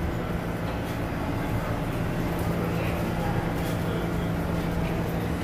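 New York City subway train standing in the station, giving off a steady hum and low drone from its motors and ventilation equipment.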